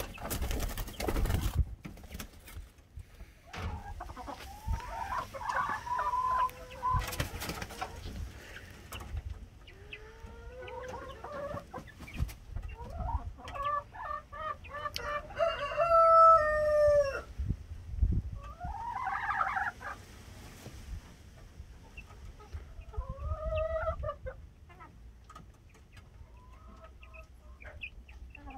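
Chickens calling and clucking on and off, with a long drawn-out call in the middle, likely from the adult roosters in the coops. A chick flaps its wings briefly at the start.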